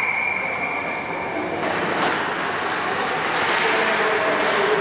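Ice hockey game sound: a constant hiss of skates on the ice and rink noise, with a long high steady whistle tone that cuts off about a second and a half in.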